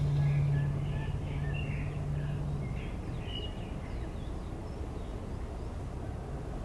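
Short chirps, like small birds calling, over steady background noise, with a low steady hum that fades out about three seconds in.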